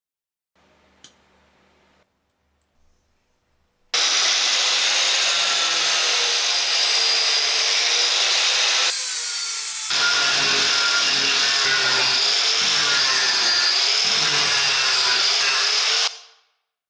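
Angle grinder with a wood-carving disc grinding into wood: a loud, steady rasping with a high whine that starts abruptly a few seconds in, changes briefly midway, and cuts off near the end.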